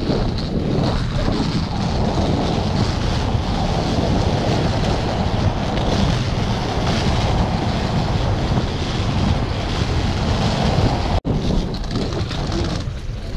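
Steady rolling rumble of inline skate wheels on street paving, mixed with wind buffeting the microphone. The sound cuts out for an instant about eleven seconds in.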